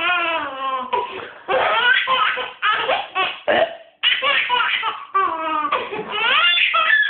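A baby laughing hard in a run of about six bursts of belly laughs and giggles, each breaking off for a moment before the next.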